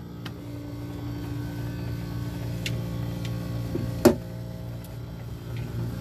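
Steady low hum of a refrigerator running. A couple of faint clicks and one sharp knock about four seconds in come as the wire shelves are handled.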